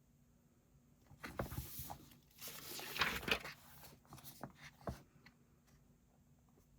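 Paper rustling in two swishes as a book page is turned, followed by a few soft taps; it starts about a second in and stops around five seconds in.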